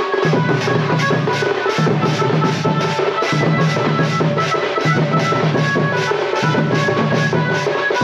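Music with a fast, steady drumbeat, about four or five beats a second, over sustained tones and a repeating bass line.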